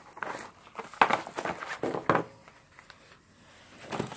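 Rustling and handling of fireworks packages during a search through the stash, in several short bursts about a second apart.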